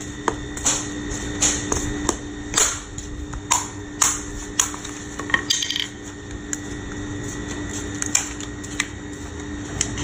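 Small hammer knocking on a large cooked crab's very hard shell to crack it: sharp knocks, one or two a second for the first five seconds or so, then a few scattered cracks.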